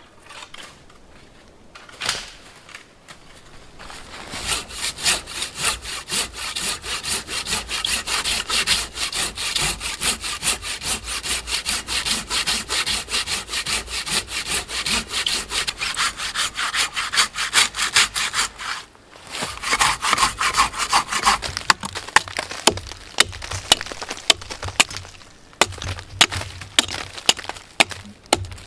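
Curved hand pruning saw cutting into a birch burl on a standing tree: rhythmic back-and-forth sawing strokes through the wood. They start a few seconds in, pause briefly about two-thirds of the way through, then resume with sharper, more spaced strokes.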